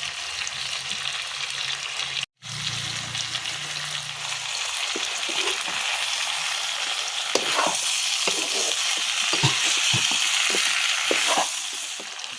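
Food sizzling as it fries in a pan, with a steady hiss and a low hum for the first few seconds. From about five seconds in, a spoon stirring in the pan adds many short scrapes and knocks.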